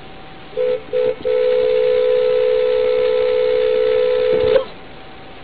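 Car horn sounding a steady two-note tone: two short beeps, then one long blast of about three seconds that cuts off suddenly. It is a warning honk at a minivan closing in at close range.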